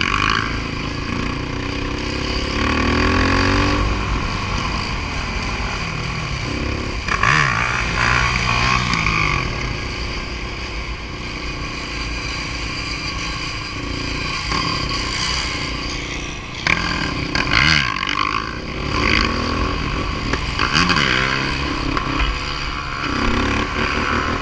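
Several sport quad ATV engines running together, revving up and down in repeated rising and falling sweeps as the riders hold wheelies, with the loudest rev bursts about a third and about two-thirds of the way in.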